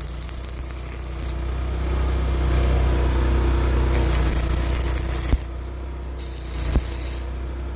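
An engine running steadily at a low hum, with a high hiss that starts and stops abruptly a few times and two sharp knocks in the second half.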